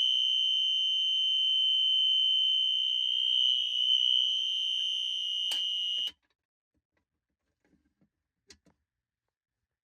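Fire alarm sounder giving a steady, continuous high-pitched tone, which cuts off abruptly about six seconds in, just after a click.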